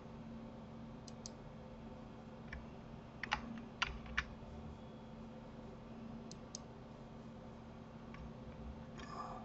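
Scattered sharp clicks of a computer keyboard and mouse, the loudest few coming close together between three and four seconds in, over a low steady hum.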